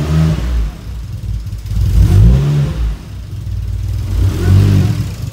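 Nissan RB26DETT twin-turbo inline-six in an R33 Skyline GTR running just after its first start-up following an engine swap, its revs rising and falling about three times as it is held on light throttle to keep it running.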